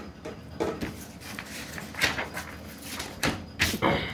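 Paper rustling and crackling as a folded printed letter is handled and pressed flat, in a run of short crackles, the loudest about two seconds in and twice more near the end.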